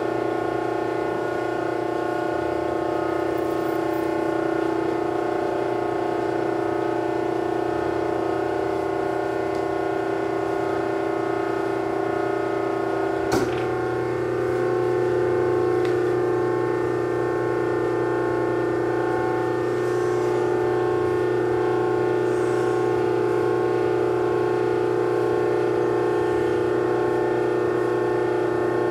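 Three-phase 1 HP, 208 V electric motor running lightly loaded at reduced voltage under a Powerboss soft-start and energy-optimizing controller, giving a steady, many-toned electrical hum. A single sharp click comes about halfway through, after which the hum grows slightly louder.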